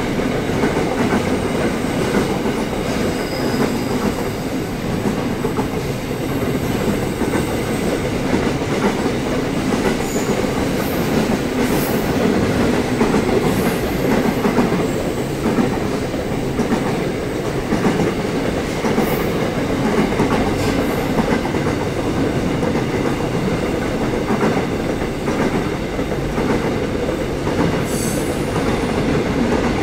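Container freight train's wagons rolling past close by: a loud, steady rumble with wheels clacking over the rail joints and a few brief high-pitched wheel squeals.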